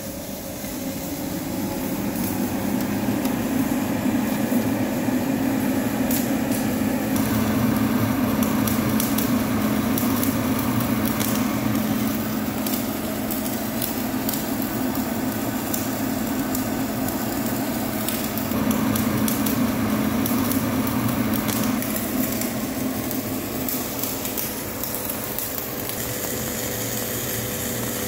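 Electric welding arc crackling steadily, with a continuous hum underneath and frequent sharp spatter pops.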